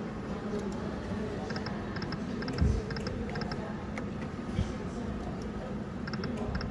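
Slot machine and casino-floor din, with a run of quick triple clicks repeating about twice a second, which stops and starts again near the end. A dull low thump about two and a half seconds in.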